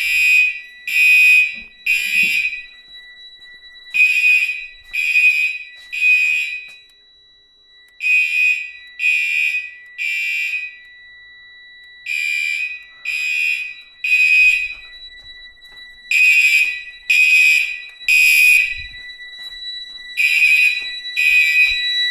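Wheelock 34T series mechanical fire alarm horn blaring in the temporal-3 evacuation pattern: three buzzy blasts a second apart, then a pause, repeating every four seconds. A steady high tone sounds underneath the blasts throughout.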